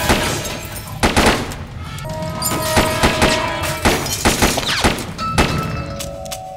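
Film-soundtrack gunfire: several bursts of rapid shots over tense film-score music.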